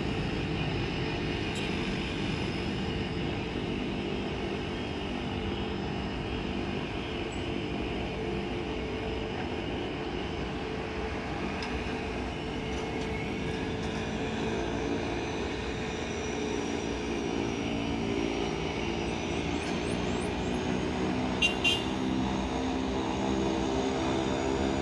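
Boeing 767-300ERF's jet engines rumbling steadily in the distance as the freighter climbs away after takeoff. A brief sharp double click comes near the end.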